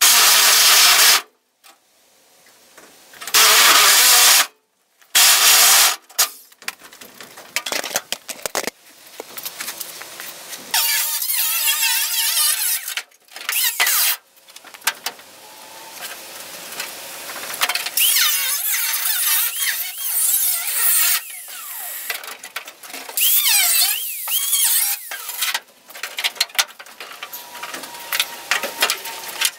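Electric grinder with a cut-off wheel cutting through the sheet steel of a 1964 Ford Galaxie's quarter panel, first in three short bursts, then in longer stretches of cutting whose whine rises and falls as the wheel loads up and frees in the metal.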